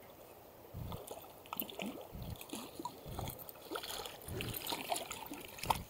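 Soft, irregular splashes and gurgles of shallow river water, with a few low knocks scattered through.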